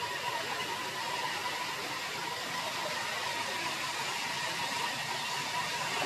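Steady outdoor ambient hiss with a faint, constant high tone running through it, with no distinct calls or knocks.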